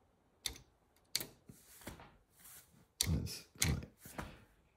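Keys on a PAL-2 computer's hex keypad clicking as they are pressed one at a time, about half a dozen separate presses. There are a few duller knocks in the second half.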